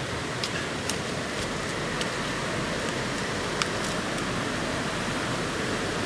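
Steady rush of a river's flowing water, an even hiss with no let-up, with a few short sharp clicks scattered through it.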